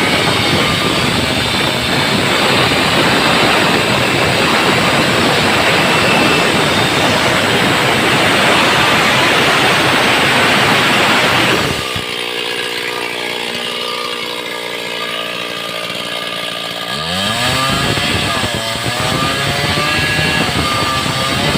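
Stihl chainsaw running hard with a dense, noisy sound. About twelve seconds in it drops to a steady lower engine note. About seventeen seconds in it revs sharply up again and holds a high, wavering pitch.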